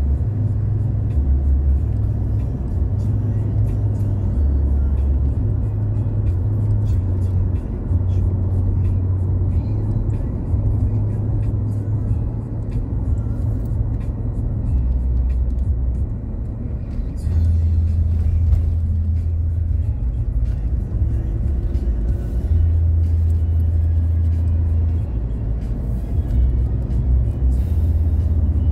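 Inside a moving car: a steady low rumble of road and engine, with music playing whose bass notes step between pitches every second or two.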